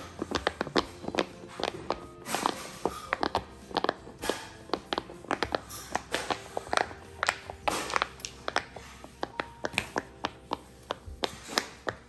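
Silicone pop-it fidget toy being popped bubble by bubble with the fingers: a rapid, uneven string of soft pops, several a second, over faint background music.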